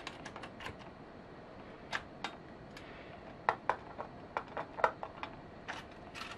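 Scattered light clicks and taps from a tape measure and pencil being handled against a window frame during marking, with a cluster of them in the second half.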